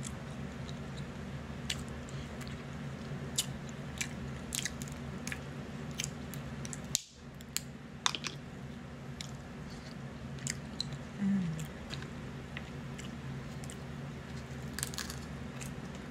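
Crab leg shells cracked and pulled apart by hand: scattered sharp cracks and clicks, with chewing, over a steady low hum.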